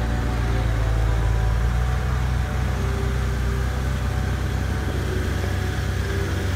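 A vehicle engine running with a low, steady rumble.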